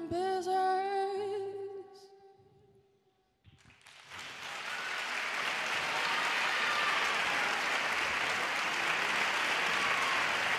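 A woman's voice holds a final sung note with vibrato, fading out over about two seconds. After a short hush the audience breaks into applause, which swells and stays steady.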